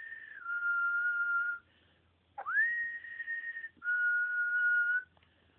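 A person whistling a two-note pattern twice: each time the whistle slides up into a held high note, then steps down to a lower held note, each note lasting about a second.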